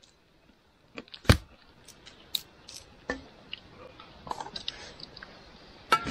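Scattered clicks and knocks of camp cooking gear and ingredients being handled, the sharpest about a second in, followed by lighter tapping and rustling.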